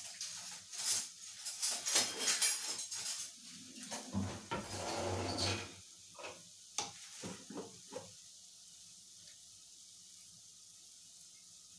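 Steel kitchen utensils and containers handled on a counter: spoons and jars clinking and knocking in quick succession, with a longer scrape about four seconds in and a few last knocks before it goes quiet about eight seconds in.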